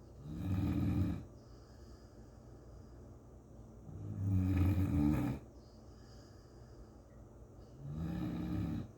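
English chocolate Labrador retriever snoring in its sleep: three snores about four seconds apart, each lasting about a second.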